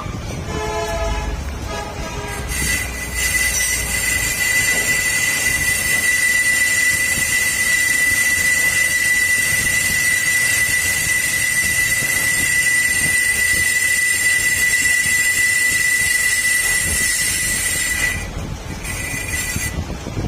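Valve seat cutter machining a seat in a cylinder head: a steady, high-pitched metal-cutting squeal over a hiss, which breaks off near the end and briefly returns. It starts with a couple of seconds of lower, wavering tones as the cutter bites in.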